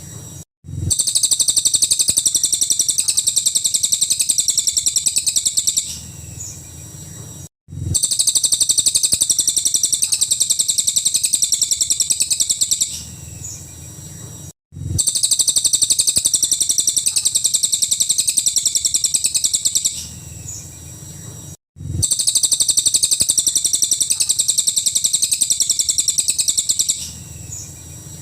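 A cililin bird singing long runs of rapid, high-pitched repeated notes, each run lasting about five seconds and coming round about every seven seconds, with a short quieter call and a brief break between runs.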